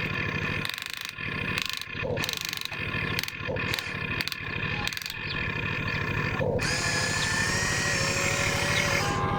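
Motors of radio-controlled model construction machines running with a whine. The sound is choppy with short breaks at first, and the whining tones glide up and down in pitch from about two-thirds of the way in.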